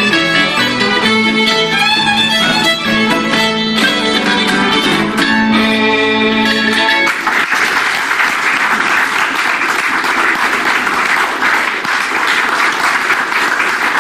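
Fiddle and acoustic guitar playing a lively traditional tune that ends about halfway through, followed by audience applause.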